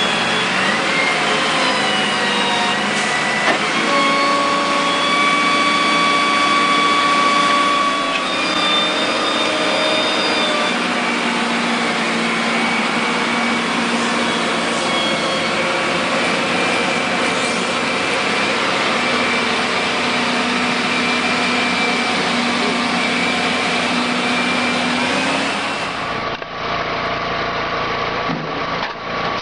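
Wood-cutting machinery running steadily: a loud, even mechanical noise with a few held whining tones that change pitch every few seconds.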